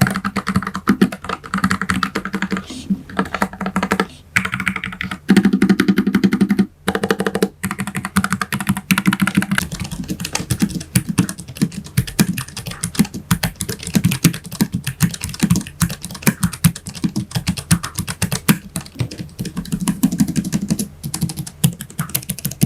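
Low-profile mechanical keyboard with brown switches being typed on fast and steadily: a dense run of key clicks that breaks off briefly twice.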